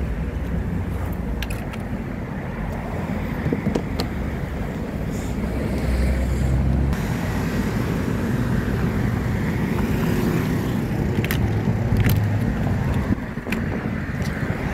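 Road traffic: cars and other vehicles passing close by with a steady rumble that swells for a few seconds midway. A few short, light clicks stand out over it.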